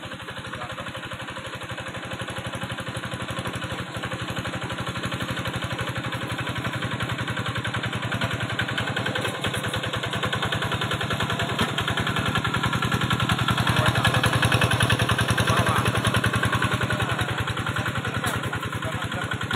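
The engine of a rice-paddy field machine running steadily, with an even, rapid beat from its firing strokes. It grows louder toward the middle and eases slightly near the end.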